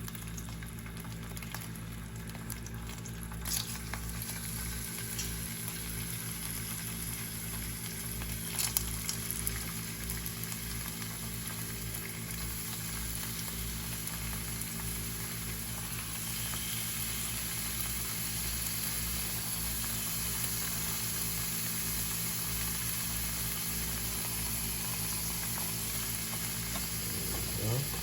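Fish pieces frying in hot oil: a steady sizzle, with a few sharp clicks a few seconds in and again around nine seconds, growing a little louder about halfway through.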